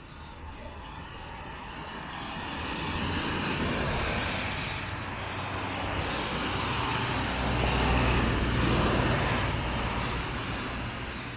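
Road traffic passing close by: a vehicle swells up and past, then a second, heavier one with a deep engine rumble passes more loudly and fades away.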